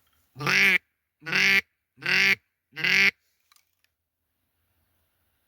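Hunter's duck call blown in four loud quacks, about 0.8 s apart, to bring in ducks that are flying.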